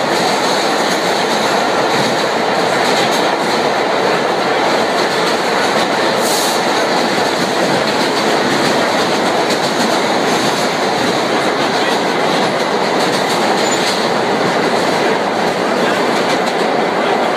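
Vintage R1–R9 'Arnine' New York City subway car running along the track, heard from inside the car: a steady, loud rumble of steel wheels on rail.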